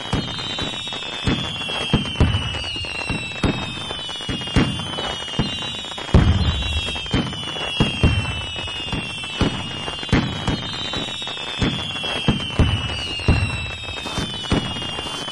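Fireworks going off: a dense string of bangs and crackles, with whistles that fall in pitch every couple of seconds.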